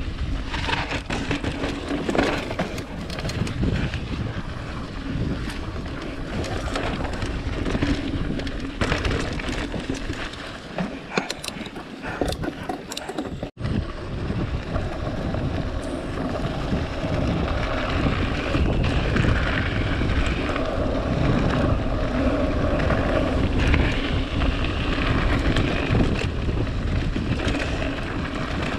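Mountain bike riding down a dirt trail: wind buffeting the microphone over the noise of the tyres, with many small knocks and clicks from the bike rattling over bumps.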